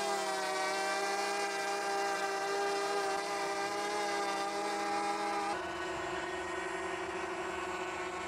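Quadcopter drone's propellers whining steadily in flight, the tone shifting and getting slightly quieter about five and a half seconds in.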